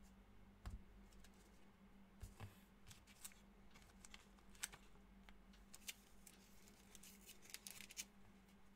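Near silence: faint, scattered clicks and slides of trading cards being handled on a table, over a low steady hum.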